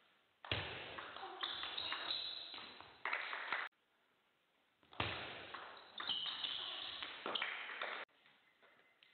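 Table tennis ball being struck back and forth: a string of sharp pings as it hits the rackets and the table. The sound comes in two stretches of a few seconds each, each starting and stopping abruptly.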